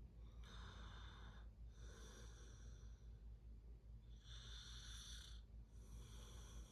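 Someone snoring softly in their sleep: two slow breath cycles, each a hissy in-breath followed by an out-breath, over a low steady hum.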